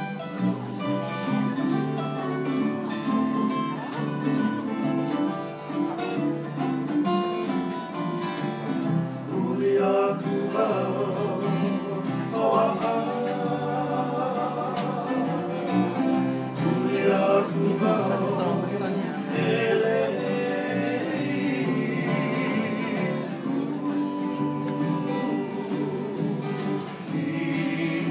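Live acoustic guitars strummed and picked in a Hawaiian-style song, with voices singing in harmony from about ten seconds in.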